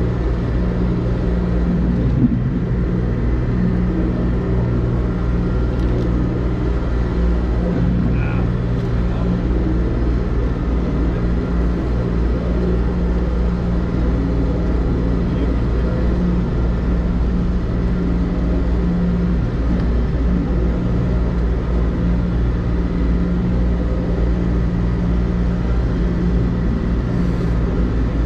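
APE vibratory hammer running steadily with a constant low hum, shaking an old wooden pile to pull it or break it off.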